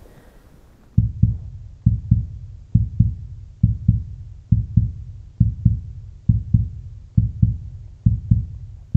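Heartbeat sound effect: a slow double thump (lub-dub) repeating about once a second, starting about a second in.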